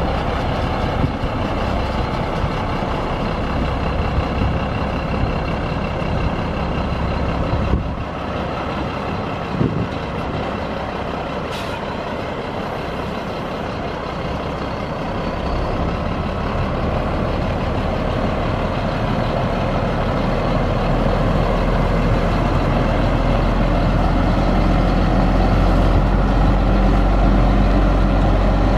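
Mack EM7 12.0-litre inline-six diesel engine of a 1991 Mack CH613 dump truck running steadily. It gets louder and heavier over the last third.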